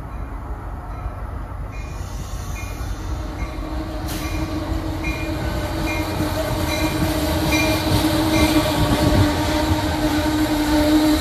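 Shoreline East push-pull commuter train pulling into the station with its cab car leading. It rumbles louder and louder as it nears, with a steady whine building under it. Its bell rings at a little under two strokes a second for most of the approach.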